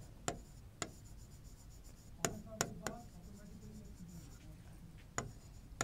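Faint writing on a blackboard: the writing tip taps sharply against the board several times at uneven intervals, with soft scraping between taps, as a word is written.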